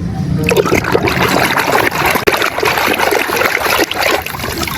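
Water running and splashing as a muddy plastic toy vehicle is rinsed clean.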